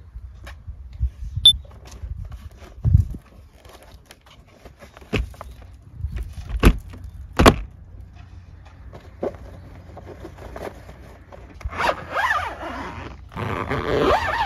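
Plywood door of a truck-bed camper shell being swung shut and latched: a handful of knocks and clunks, the two loudest close together about halfway through. Near the end the silver sheet cover rustles and scrapes in two stretches as it is pulled down over the back of the shell.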